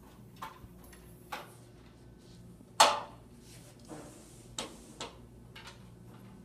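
Retractable banner stand's support poles being handled and fitted into the base: a string of sharp clicks and knocks, about seven in all, with one much louder knock about three seconds in.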